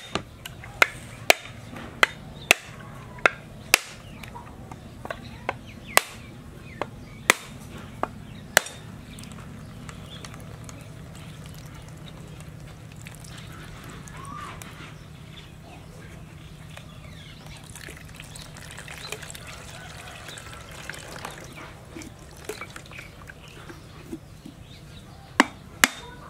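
A cleaver striking the shell of a husked coconut to crack it open: a series of sharp knocks, about a dozen in the first nine seconds, then a long lull with only a low steady background noise, and three more knocks near the end.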